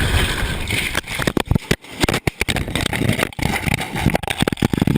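Light aircraft crashing, heard from inside the cabin: a steady engine and air rumble gives way about a second in to a rapid, irregular run of loud bangs, crunches and rattles as the plane hits the ground.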